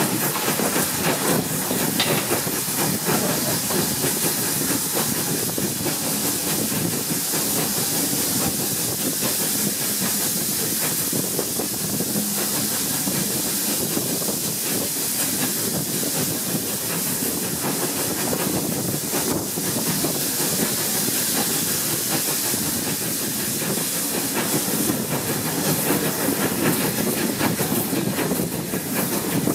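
A steam locomotive hauling a train at speed, a steady hiss and rush of steam and exhaust mixed with the carriage wheels running on the rails. It is heard from an open carriage window.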